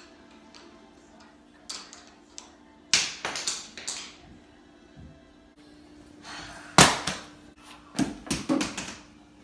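Household objects knocked off a table by a cat, striking the floor: a light knock near two seconds in, a clatter of several hits around three to four seconds, one loud hit near seven seconds, and another quick clatter about a second later. A faint steady hum runs underneath.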